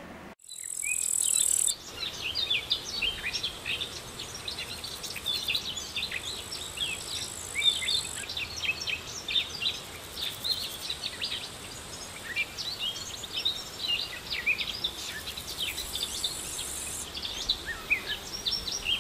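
Birdsong and insects: many small birds chirp and sing throughout, over a very high, steady insect buzz that comes and goes in stretches.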